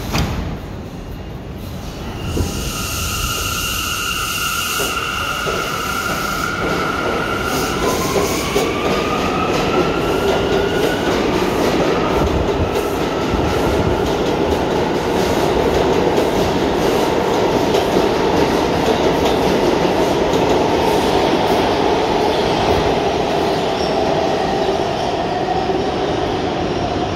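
R179 subway train pulling out of a station. A thump right at the start is followed by a steady electric whine from the propulsion, then a whine rising in pitch as the train accelerates, with clicks of the wheels over the rail. Then a loud, building rumble of the cars running past.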